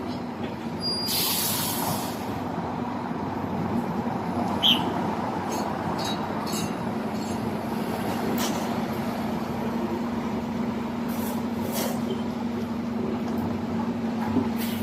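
Steady street traffic noise with a vehicle engine's low, even hum. A burst of hiss comes about a second in, like an air brake releasing, and a single short high chirp comes a few seconds later.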